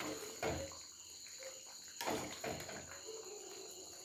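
A steel ladle stirring a thick curry in a metal pan, with soft scrapes and a couple of louder knocks against the pan about half a second and two seconds in. A faint steady high whine sits underneath.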